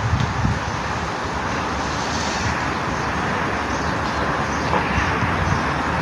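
Steady hiss of nitrogen gas flowing out of a cylinder through its valve and regulator, flushing oil out of an air-conditioning unit's refrigerant lines.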